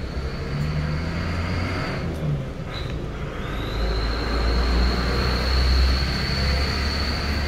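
Steady low background rumble and hiss with a thin, constant high-pitched whine that drops out for about a second partway through.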